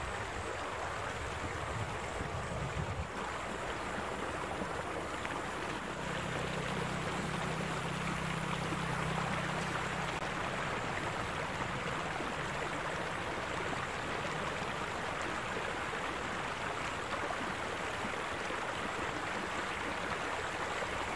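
Water flowing steadily along a narrow stone-lined irrigation channel, a continuous rushing sound.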